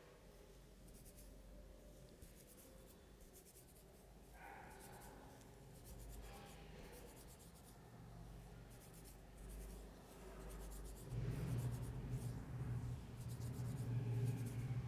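Hands massaging the scalp and rubbing through hair, a run of soft, scratchy rubbing strokes that repeat. About eleven seconds in, a louder low hum comes in under the strokes.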